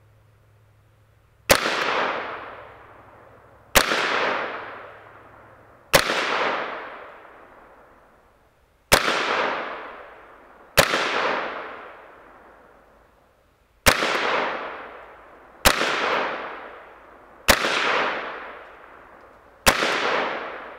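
Savage A17 semi-automatic .17 HMR rifle firing nine deliberate shots about two seconds apart. Each is a sharp crack followed by a long echo that fades over a couple of seconds.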